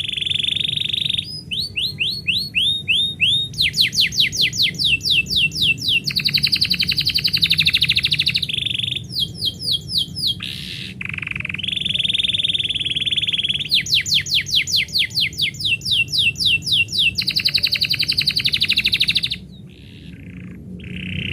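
Canary singing a long song of repeated phrases: fast downward-sweeping notes, held tones and rapid rolling trills, with a short break near the end. A steady low hum runs underneath.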